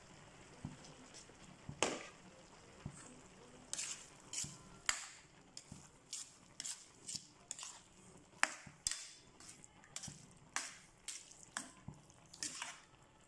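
A cooking utensil stirring thick ground meat and tomato sauce in a stainless steel pan, scraping and clacking against the pan's side and bottom. From about four seconds in the scrapes come irregularly, one or two a second, with wet squelching between them.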